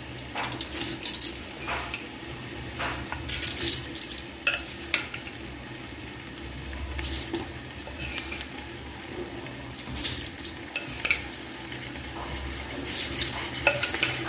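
Soaked rice being spooned into a pot of fried onions in hot oil and ghee: sizzling, with repeated sharp clinks of a metal spoon against the pot.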